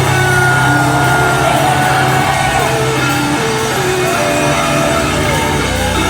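Heavy metal band playing live through a loud festival PA: amplified guitars holding long, stepping notes over a steady heavy bass.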